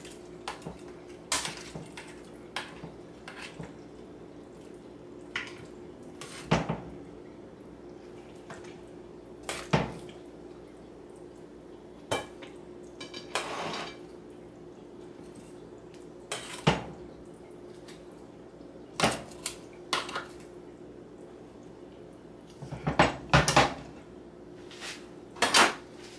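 Metal kitchen tongs and utensils clinking against a plate and pan while fried chicken is plated: separate irregular clinks and clacks, several in quick succession near the end, over a steady faint hum.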